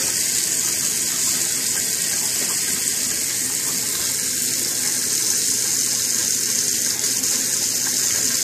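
Kitchen faucet running a thin, steady stream into a stainless steel sink, the water splashing onto the drain strainer.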